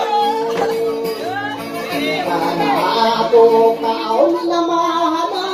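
A man singing into a microphone: a slow melody of long held notes joined by sliding, ornamented turns.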